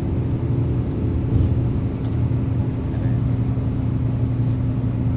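Steady low rumble of a running motor vehicle: an even engine hum over road noise.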